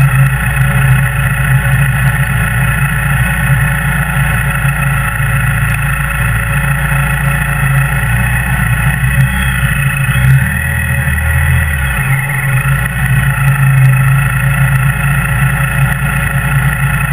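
Kawasaki W800's air-cooled parallel-twin engine running steadily at low speed as the bike rolls slowly through traffic. Its low note changes briefly about ten seconds in.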